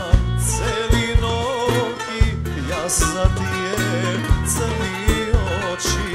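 Live folk band playing an ornamented melody, with a plucked kanun and guitar over bass guitar, drum kit and hand drum.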